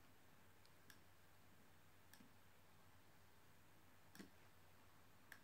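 Near silence with four faint, irregularly spaced clicks from a laptop as pictures are paged through.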